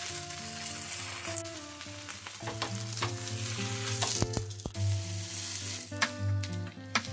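Bread slices frying in hot oil in a nonstick pan: a steady sizzle as each slice is laid face down, with a few sharp clicks in the middle. Soft instrumental background music plays underneath.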